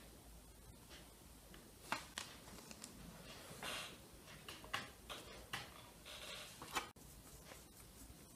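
A metal spoon clinking and scraping against a metal baking tray as roasted potatoes are lifted onto a platter: a few sharp clinks with short scrapes in between.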